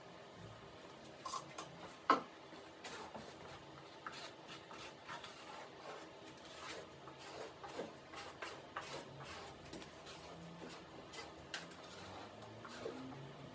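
Faint scattered clicks, taps and rubbing from gloved hands handling an epoxy container and smoothing wet fiberglass cloth, with one sharper click about two seconds in.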